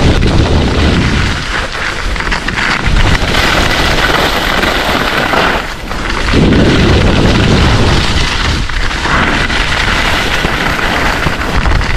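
Wind buffeting the camera microphone during a downhill ski run, mixed with skis scraping and hissing over packed snow. The low rumble comes in strong surges, with the higher scraping hiss taking over in between.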